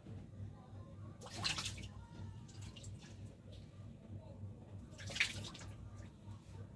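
Water splashing twice, in two short bursts: about a second and a half in, and again about five seconds in. A steady low hum runs underneath.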